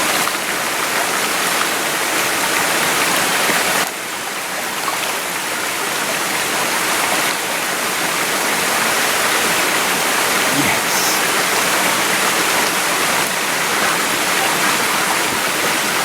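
Small mountain stream running: a steady rush of water, dropping a little in level about four seconds in.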